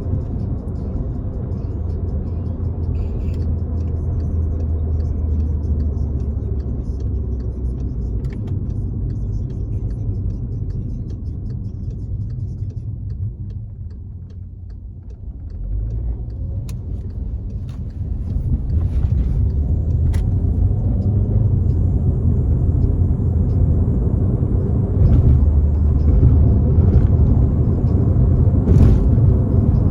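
Turbocharged Volkswagen Jetta's engine and road noise while cruising, a steady low drone. It eases off for a couple of seconds about halfway through, then builds again and runs louder through the last part.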